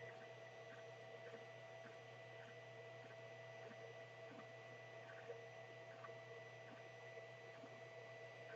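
Cocoon Create 3D printer running a print, faint: a steady high stepper-motor whine that dips briefly about once a second as the moves change, over a low fan hum, with a few small ticks.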